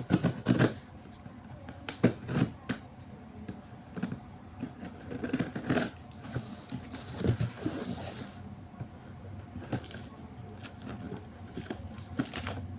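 Packaging being handled and torn open by hand: scattered rustles, scrapes and taps, with a longer stretch of rustling tearing from about six to eight seconds in.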